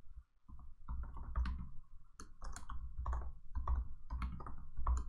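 Typing on a computer keyboard: after a brief pause, an uneven run of keystrokes about three or four a second, each a short click with a low thud.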